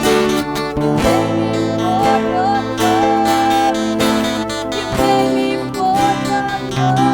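Worship band music playing without words: sustained chords with a strummed guitar rhythm and a single sliding melody line held above them. The chords change about a second in and again about five seconds in.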